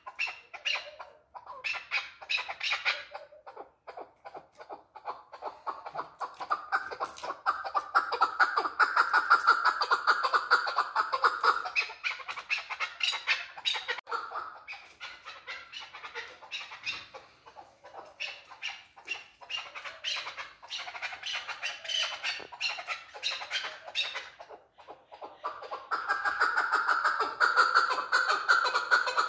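Male chukar partridge calling: long bouts of rapid, repeated notes, swelling louder in the middle and again near the end, with short pauses between bouts.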